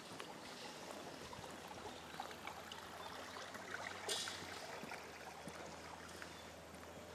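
Shoes stepping on an asphalt road over a faint, steady wash of running water, with a short rustle about four seconds in.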